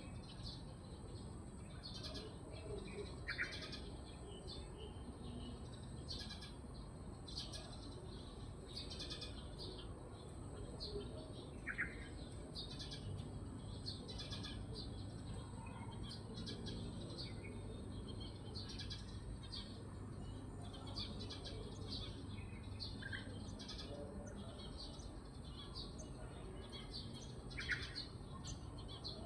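Birds chirping: a steady run of short, high chirps, with a louder, lower call standing out about four times.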